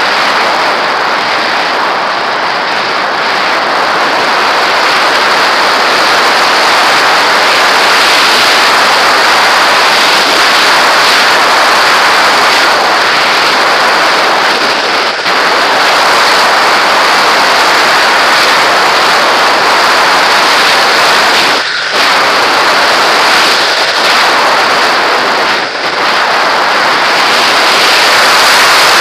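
Loud, steady rush of airflow buffeting an onboard camera's microphone on a model glider in fast flight, with no motor heard, briefly dipping a few times.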